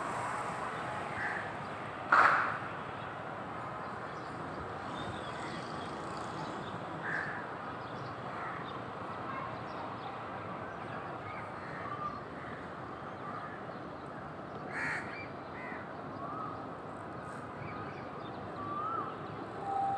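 Crows cawing now and then over a steady outdoor background hum. One loud caw comes about two seconds in, another near fifteen seconds, and fainter short calls are scattered between.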